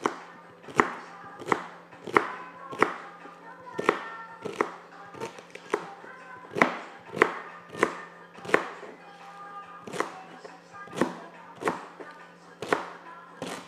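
Knife chopping celery on a cutting board: sharp knocks of the blade hitting the board, about one or two a second at an uneven pace.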